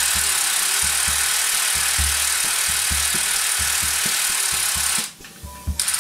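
Snap-on cordless ratchet running steadily on a bolt of a Harley Shovelhead engine during disassembly. It stops suddenly about five seconds in, then gives one short burst near the end. Background music with a steady beat plays underneath.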